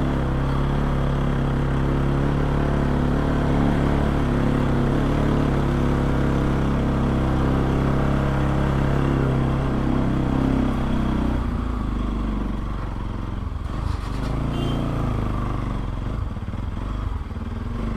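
Bajaj Pulsar NS200's single-cylinder engine running through an aftermarket Akrapovic exhaust with a dB killer fitted, holding a steady note while riding. About eleven seconds in the note drops and turns less even.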